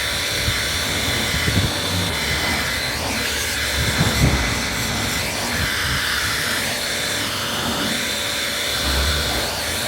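Handheld hot-air gun running steadily while old vinyl decals are warmed to peel them off, with a few low knocks of handling.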